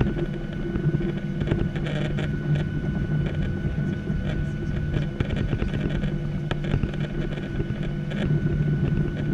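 Cabin noise inside a Boeing 737-700 taxiing: the CFM56 engines' steady low hum at taxi power with a thin constant whine, and scattered light rattles and clicks.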